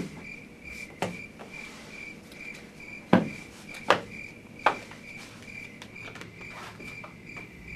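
A cricket chirping steadily, about two chirps a second, with a few sharp knocks, the loudest about three seconds in.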